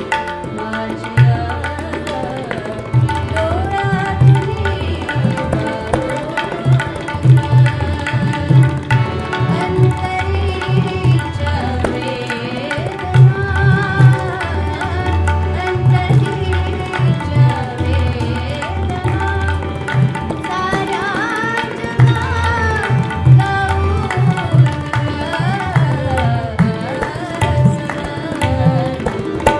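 A woman singing a Marathi ghazal in a wavering, ornamented line, with harmonium and tabla accompaniment; the tabla's deep bass-drum strokes beat steadily underneath.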